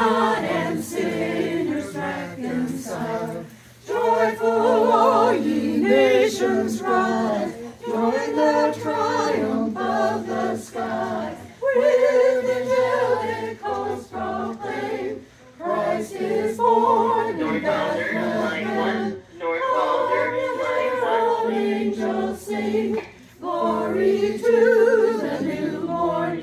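Small group of carolers singing a Christmas carol unaccompanied, men's and women's voices together, in phrases broken by short pauses for breath.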